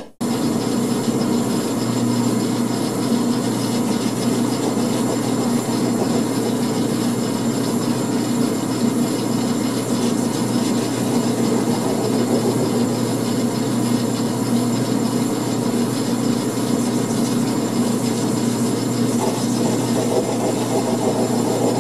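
Grizzly G4000 9x20 metal lathe running steadily under power, its spindle turning a brass rod while a tool held in the quick change tool post cuts it.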